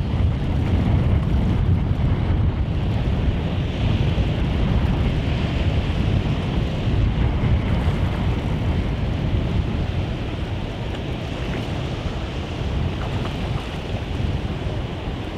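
Wind buffeting the microphone over the steady wash of shallow sea water.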